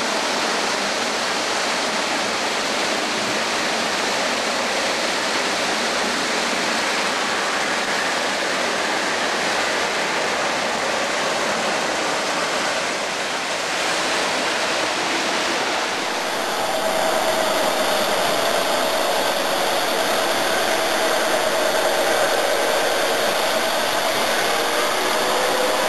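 O gauge electric model train running on the layout's track: a steady rushing noise of wheels and motor. About 16 seconds in the sound changes and a faint steady hum comes in.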